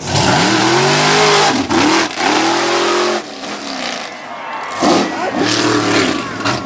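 Race-built mega mud truck engine revving hard at full throttle, its pitch swinging up and down several times over a loud exhaust rush. It eases off about three seconds in, then revs up again near five seconds.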